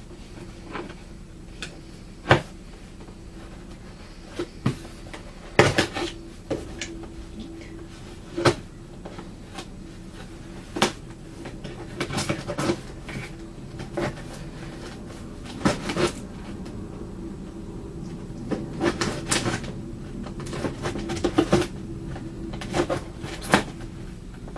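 A mailed package being opened by hand: irregular sharp knocks and clicks, some in quick clusters, as the packaging is handled and pulled open, over a steady low hum.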